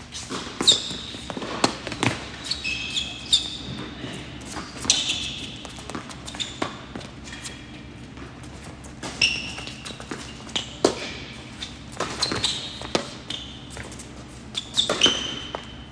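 Doubles tennis rally on an indoor court: repeated sharp hits of rackets striking the tennis ball, with brief high-pitched squeaks of sneakers on the court surface between shots.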